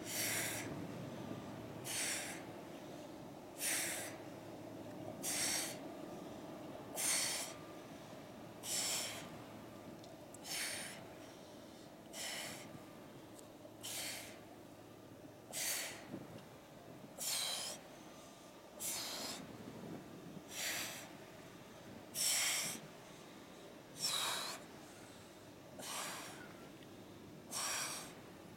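A woman's sharp exhalations, one forced breath out with each crunch as she curls up, in a steady rhythm of about one every second and three-quarters.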